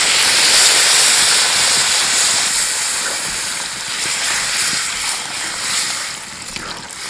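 Water poured from a steel bowl into a hot kadai of fried spiced dried peas and potatoes, splashing and hissing as it meets the pan. It is loudest in the first second or two and slowly eases off as the pour goes on. This is the water going in to turn the fried masala into the ghugni's gravy.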